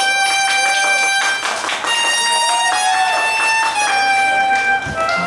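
Soprano saxophone playing a melody of long held high notes that change pitch every second or so, with a short run of quicker notes in the middle, over acoustic guitar accompaniment.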